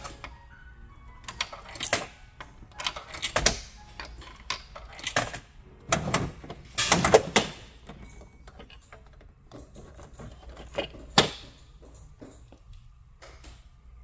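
Gachapon capsule machine's crank knob being turned through a run of ratcheting clicks and clunks, with a louder plastic clatter around the middle as the capsule drops into the pickup chute and is taken out.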